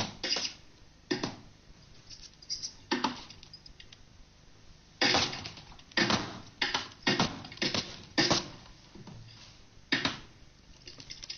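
Thick oil paint being slapped and smeared onto a canvas with a brush: an irregular string of short slaps and scrapes, coming thick and fast from about five to nine seconds in.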